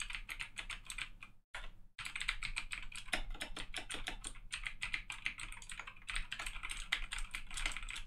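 Fast typing on a Razer BlackWidow V2 mechanical keyboard with Razer Green clicky switches: a dense, really loud run of key clicks, with a brief pause about a second and a half in.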